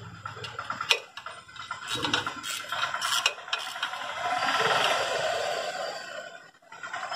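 Ratchet wrench clicking in several short runs as it tightens the bolts of a motorcycle engine's side plate.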